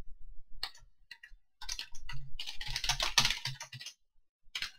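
Typing on a computer keyboard: a few scattered keystrokes, then a quick run of rapid typing in the middle, and a couple more keystrokes near the end.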